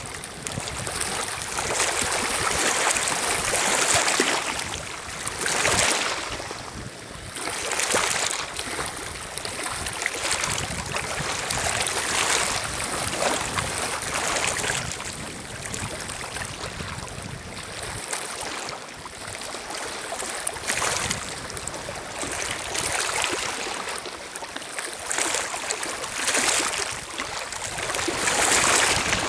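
Small lake waves lapping and washing over a stony shore, swelling and fading every couple of seconds.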